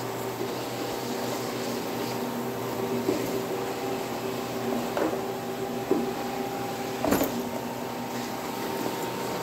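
Single-disc rotary floor machine running steadily, its motor humming as the pad scrubs a wet engineered hardwood floor to strip built-up Orange Glo polish. A few short knocks, the sharpest about seven seconds in.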